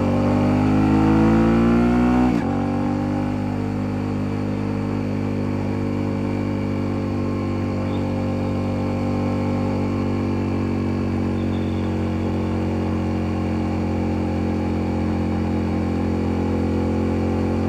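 Motorcycle engine heard from a phone in the pillion seat while riding: its pitch climbs under acceleration for about two seconds, drops sharply at a gear change, then settles into a steady cruise that eases down slightly.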